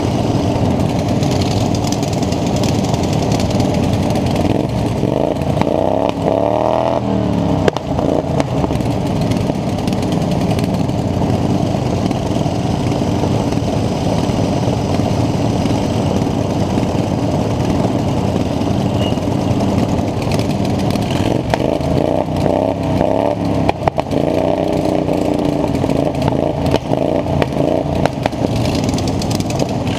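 Racing lawn mower engines running hard and steady. The pitch rises and falls about six seconds in, and again from about twenty-one to twenty-five seconds in, as the engines rev up and ease off.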